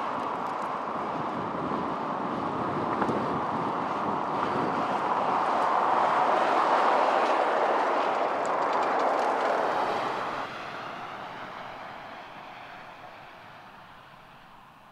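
Pickup truck towing a boat on a triple-axle trailer driving past: steady tyre and road noise swells to its loudest about seven seconds in, then drops off suddenly and fades away.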